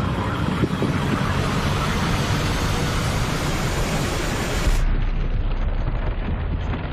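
A loud, steady rushing noise like wind, with a low rumble underneath. About five seconds in it cuts to a duller, rougher rushing.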